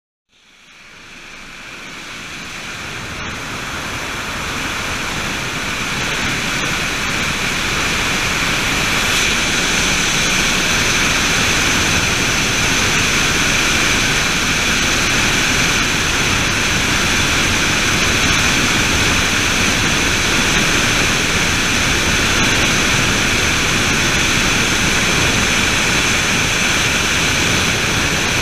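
Helicopter cabin noise in flight: the steady drone of the engine and rotor with a high whine on top, fading in over the first few seconds and then holding level.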